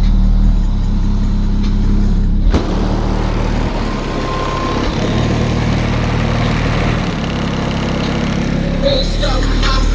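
Bass-heavy song played loud through a car stereo with a DC Audio Level 4 12-inch subwoofer, its deep sustained bass notes dominating inside the car. The track changes sharply about two and a half seconds in.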